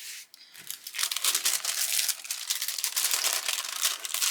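Plastic packaging of a diamond painting kit crinkling and rustling as it is handled and opened, starting about a second in and going on steadily.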